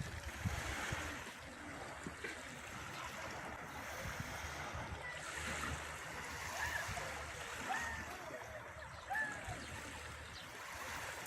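Sea waves washing on the shore, a steady rushing noise that swells and eases, with a few faint short sounds that rise and fall in pitch in the second half.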